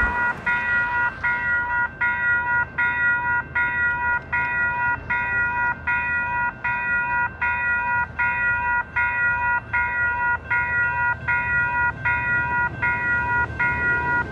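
Railroad crossing's electronic warning bells, including WCH Type 4, General Signals Type 2.5 and NEG units, ringing together in a fast, even, repeating ding. The crossing is activated for an approaching train, with its gates coming down.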